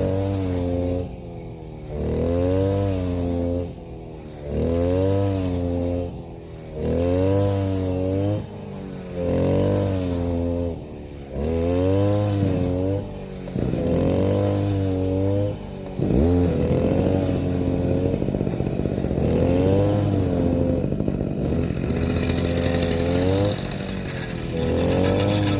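A small engine revved up and down over and over, about every two seconds, its pitch rising and falling with each rev. About two-thirds of the way through it drops sharply, then runs on more steadily with smaller swings in pitch.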